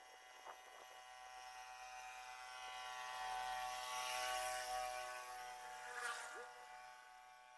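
A faint, steady machine hum at an even pitch that swells over a few seconds and then fades away, with a single click about six seconds in.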